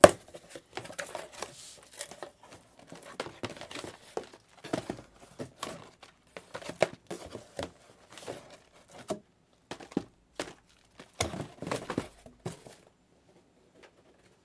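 Cardboard and plastic wrapping crinkling and tearing as a fresh sealed case of trading-card boxes is unpacked by hand, in irregular crackles and rips that stop near the end.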